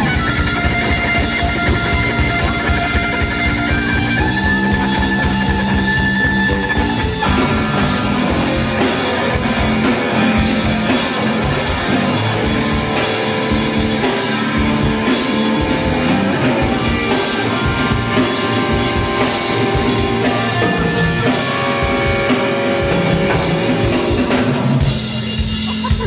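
Live rock band playing an instrumental passage: Telecaster-style electric guitar holding sustained notes over bass guitar and a steady, busy drum kit beat. The band drops back briefly near the end.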